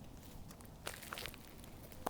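A few soft footsteps on the ground about a second in, over a faint outdoor background.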